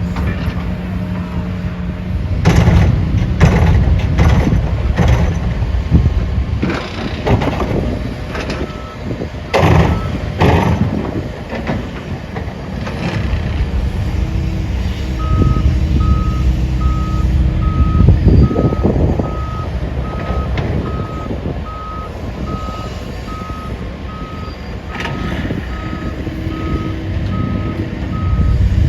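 Heavy diesel construction machinery running, with a string of loud metal clanks and bangs in the first half. From about halfway on, a vehicle's reversing alarm beeps steadily about once a second over the engine.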